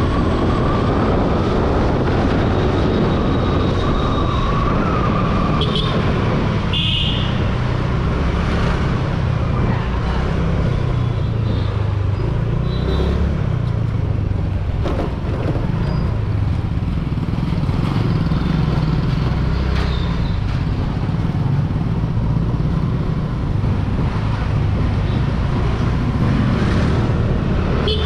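Riding noise from a moving TVS Jupiter scooter in traffic: the scooter's engine running steadily under a continuous low rumble of road and traffic noise. A brief high tone sounds about seven seconds in.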